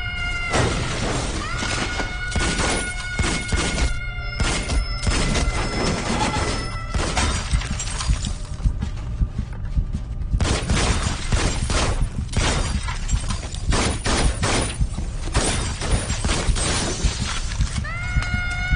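Action-film soundtrack: music with a held high tone for the first several seconds, over many sharp hits and crashes, some like breaking glass, crowding together in the second half.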